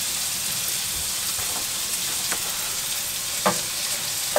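Scrambled egg and chopped tomatoes sizzling steadily in a frying pan, with a spatula knocking against the pan a couple of times near the end as the tomatoes are stirred and broken down.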